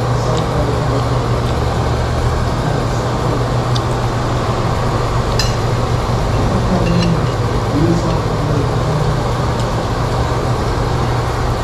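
Steady hum and rush of ventilation fans, with a few light clinks of a spoon against a bowl.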